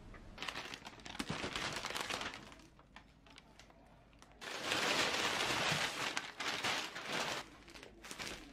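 Plastic bags around bakery bread crinkling and rustling as they are handled. There are two stretches of crackling, the second louder and longer.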